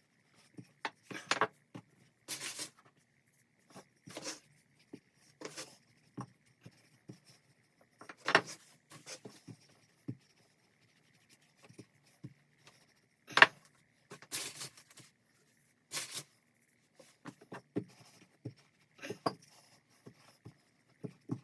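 Rolling pin and puff pastry being worked on a kitchen work surface: irregular knocks and short scrapes, with a sharp knock about two-thirds of the way through.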